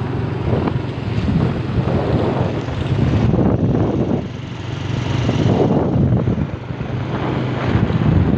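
Motorcycle engine running steadily while riding, with heavy wind buffeting the microphone.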